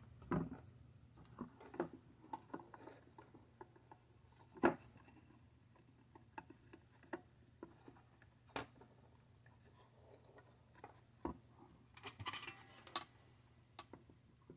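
Light handling noises from a circuit board being moved and turned over on a wooden table: scattered soft clicks and knocks, one sharper knock about four and a half seconds in and a quick cluster near the end, over a faint steady low hum.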